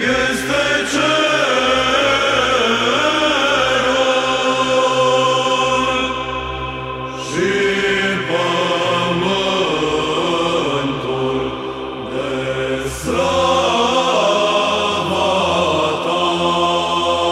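A psaltic (Byzantine) chant group sings a slow, melismatic Liturgy response in the first tone. The melody line bends and moves over a steady held drone (ison), and new phrases begin about seven and thirteen seconds in.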